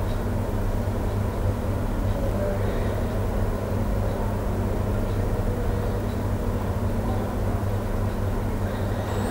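Steady low hum over even background noise, with no change in level.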